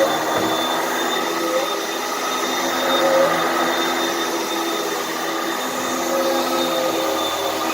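Hoover vacuum cleaner running steadily, its motor giving a steady whine over the rush of air.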